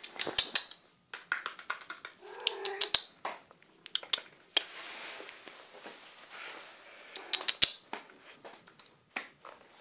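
Scattered sharp clicks, with a short wavering kitten meow about two and a half seconds in and a few seconds of even rustling noise in the middle.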